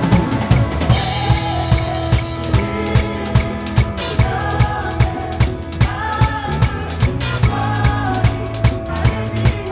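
A close-miked drum kit playing a steady beat, bass drum and snare landing about twice a second, with a live band's bass, keyboard and guitar holding chords underneath.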